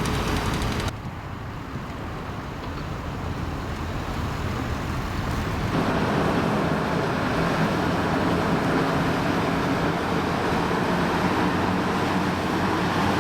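Motorboat engine running on the water, with a noisy rush of wash and wind over it. The level drops abruptly about a second in, then builds to a louder, steady run about six seconds in.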